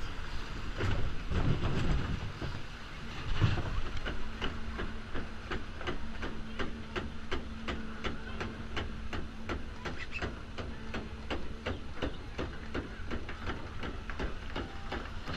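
Log flume boat being hauled up the lift hill: the lift mechanism clacks in an even rhythm of about three clicks a second over a steady low hum, the clicks starting a few seconds in.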